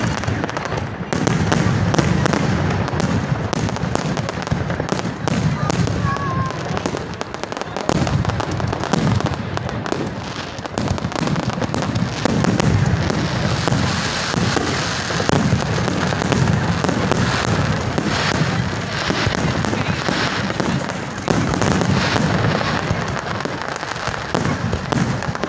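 Dense barrage of aerial fireworks: many overlapping bangs and crackles with no pause.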